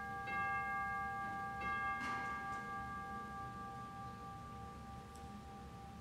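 Altar bell struck twice at the elevation of the consecrated host, its clear ringing tone lingering and slowly fading away. There is a soft knock about two seconds in.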